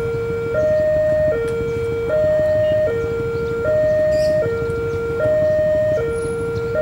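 Indonesian railway level-crossing warning siren sounding its electronic two-tone hi-lo wail, switching between the two pitches about every three-quarters of a second, with a low rumble underneath: the crossing's warning that a train is approaching.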